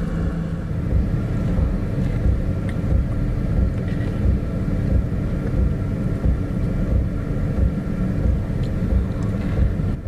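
Chinese diesel air heater running steadily: a low, even mechanical hum from its combustion fan and burner.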